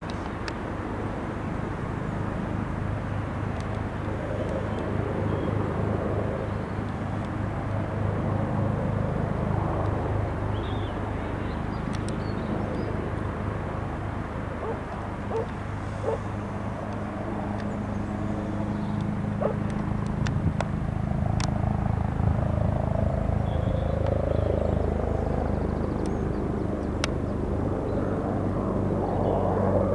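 Red-and-white search-and-rescue helicopter flying over, with a steady low rotor beat and a turbine whine that grow gradually louder as it comes closer.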